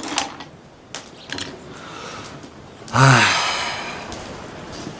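A man heaves a long, loud sigh about three seconds in, slightly falling in pitch and trailing off over about a second. A few faint clicks come before it.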